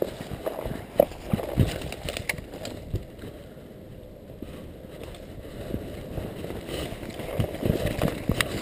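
Footsteps and body movement through woodland undergrowth: irregular low thumps, rustling of brush and clothing, and a few sharp knocks of gear against the body-worn camera, easing off for a couple of seconds in the middle.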